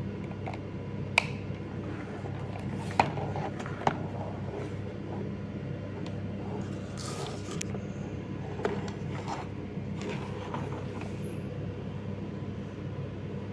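Handling of a freshly crimped CAT6 cable and a LAN tester: a few sharp clicks, about a second in, at three and four seconds and again near nine seconds, with a brief rustle in between, over a steady low hum.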